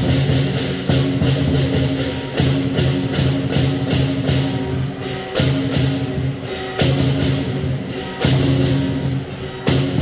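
Lion dance percussion: a large drum and cymbals beating a fast, steady rhythm of about three strikes a second, over held low notes that change pitch every second or two.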